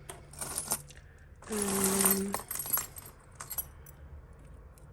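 Costume jewellery clinking and jangling as pieces are handled and dropped onto a pile: a few light clicks, then a louder jangling rattle lasting nearly a second about halfway through, then a few more clinks.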